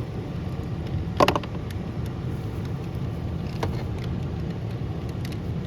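Steady low rumble of an idling vehicle engine, with a sharp plastic click about a second in and a fainter click later, as the old power window switch is worked loose from the door panel.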